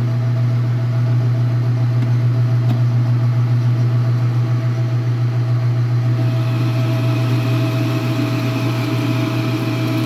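Metal lathe running with its chuck spinning while a homemade boring bar cuts a drilled hole in a metal lug out to size: a steady motor hum and whine under a cutting hiss that grows stronger about six seconds in.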